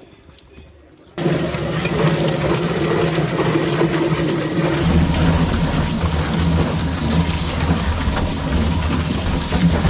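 A motor running steadily with a hum under loud rushing, spraying water. It starts abruptly about a second in and changes character abruptly about five seconds in.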